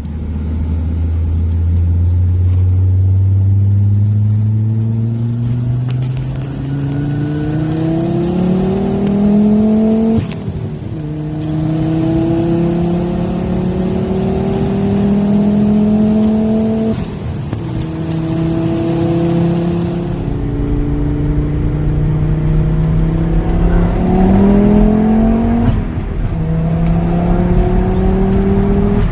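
Diesel-swapped Volvo accelerating hard through the gears: the engine note climbs steadily, then drops at each of about four upshifts, at roughly 10, 17, 20 and 26 seconds in.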